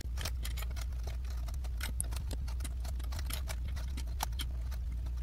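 Small plastic sewing clips (Wonder Clips) clicking and tapping as they are picked up off a table and clipped along the edges of a vinyl bag handle: an irregular run of many small clicks over a low steady hum.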